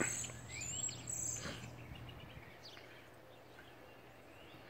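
Birds calling faintly with short chirps that slide upward, fewer in the second half, with a soft knock at the start and another about a second and a half in.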